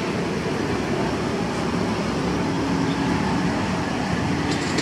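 Battered mushrooms deep-frying in a large wok of oil, a steady sizzle stirred by a wire skimmer, over a steady low rumble. A brief click comes near the end.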